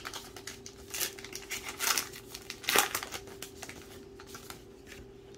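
Baseball trading cards being flipped through by hand: short papery flicks and rustles of card stock sliding against card stock, busiest in the first three seconds, over a faint steady hum.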